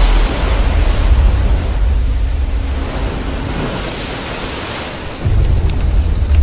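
Rushing, wind-like noise over a deep rumble, swelling and fading, with the rumble dropping off and then returning abruptly about five seconds in.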